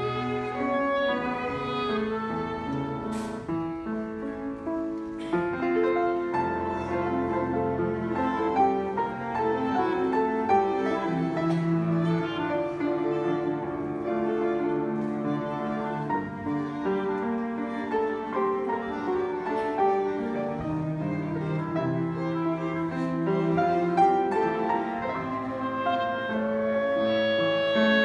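Live quartet of piano, cello, violin and clarinet playing a waltz, the bowed strings and clarinet holding long notes over the piano.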